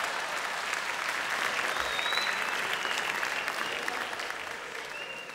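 Theatre audience applauding, the clapping holding steady and then dying away over the last second or so.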